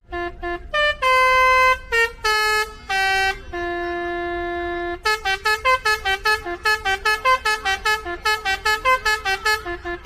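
Basuri telolet musical bus horn playing a melody. A few short and long notes come first, one held for about a second and a half, then from about halfway a fast run of short, clipped notes.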